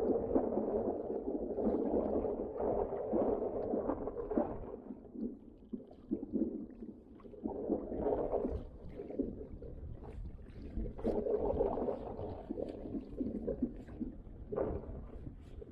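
Choppy water gurgling and slapping against a kayak's hull in strong wind, coming in uneven surges with small knocks.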